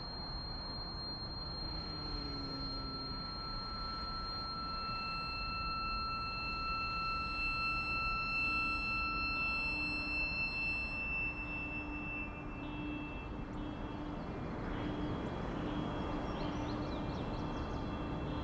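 Steady road noise of a car driving, under an ambient music score of high held tones that come in and fade out one after another.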